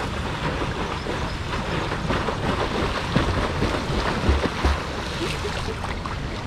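Swimmers doing front crawl in a pool, water splashing and sloshing close to the microphone, with wind on the microphone and a few low bumps a little past the middle.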